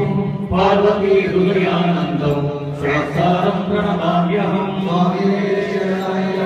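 Devotional mantra chanting in an Ayyappa puja. The voices intone on steady, held pitches with no pauses.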